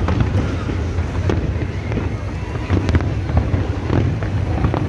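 Fireworks display: aerial shells and rockets bursting in rapid, overlapping bangs and crackles over a steady low rumble.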